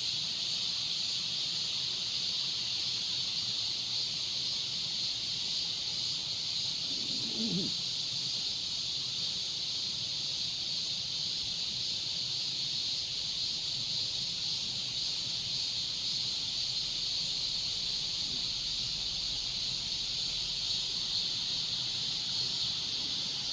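A steady chorus of insects in summer woodland, a high even shrill hiss that holds without a break.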